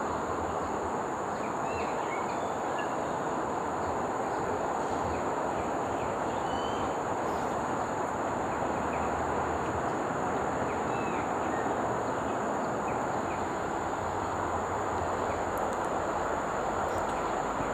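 Steady outdoor background noise: an even rushing hum with a steady high whine above it and a few faint short chirps.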